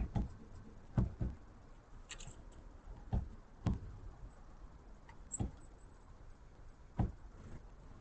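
Great spotted woodpecker pecking at peanut butter in a small wooden feeder, its bill striking the wood: about seven dull knocks at irregular spacing, two of them close together about a second in.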